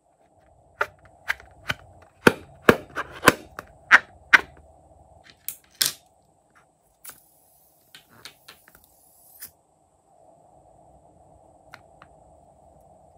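Slime being squeezed out of a rubber balloon: a quick run of sharp, loud pops and clicks in the first few seconds, then a few fainter clicks with a brief hiss.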